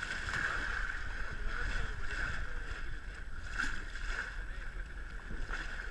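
Motorboat under way, its engine running steadily with water rushing along the hull.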